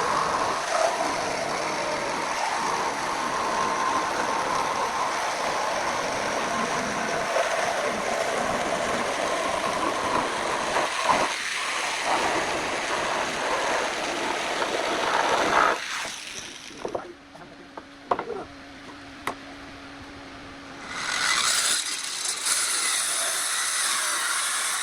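A small jigsaw cutting a curve through a very hard hardwood slab, a steady harsh buzz. It stops about two-thirds of the way through, leaving a few clicks and a faint low hum, then starts cutting again near the end.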